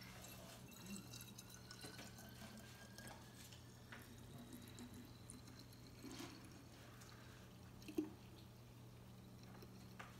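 Distilled water trickling faintly from a plastic gallon jug into a small glass bottle. Its tone rises slowly as the bottle fills, and there are a few light taps.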